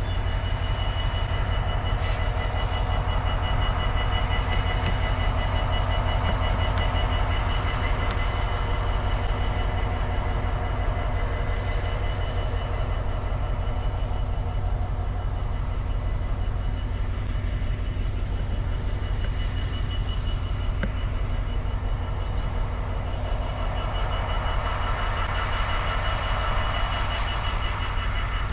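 GB Railfreight Class 66 diesel locomotive 66719, with its EMD two-stroke V12 engine, running at low speed while hauling HYA hopper wagons: a steady low engine rumble with wheel and rail noise, and a thin steady high whine over it.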